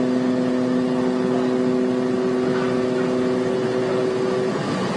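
Large ship's steady, low, pitched drone over a rushing noise. The drone stops about four seconds in.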